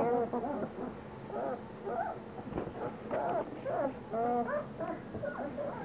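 Three-week-old German Shepherd puppies whimpering and squeaking, many short high cries one after another.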